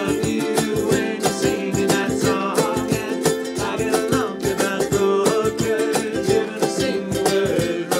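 Ukulele band playing a song: several strummed ukuleles over a steady cajon beat, with men singing.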